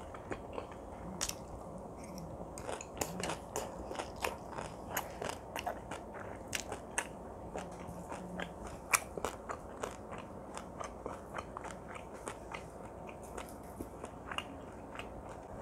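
Close-up chewing of spicy marinated raw crab (yangnyeom gejang), eaten shell and all, with many sharp, irregular crunches and crackles from the shell, a few every second. The sharpest crunch comes about nine seconds in.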